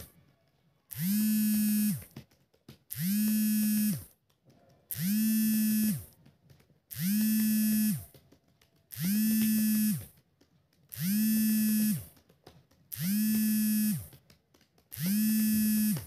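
A small motor buzzing in regular pulses, about a second on and a second off, eight times. Each pulse dips slightly in pitch as it starts and stops.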